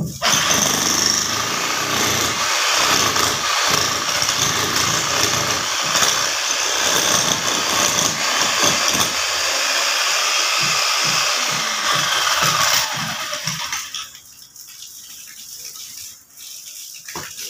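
A power tool running loudly and steadily for about thirteen seconds, then dying away, leaving quieter background noise and a few clicks.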